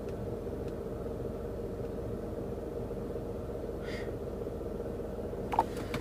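Steady low hum of a car running, heard from inside its cabin, with a light rustle near the end.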